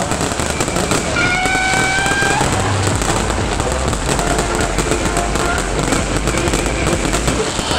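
Fireworks crackling and popping continuously. A held, slightly rising tone sounds over them from about one to two and a half seconds in.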